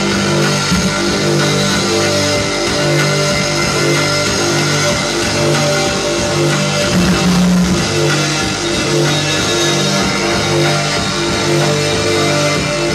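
A live rock band playing loud, guitar-driven heavy music over a low riff that repeats about once a second.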